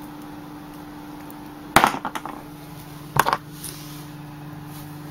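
Two sharp clacks of a hard plastic storage tub and lid being handled, about a second and a half apart, each followed by a brief rattle, over a steady low hum.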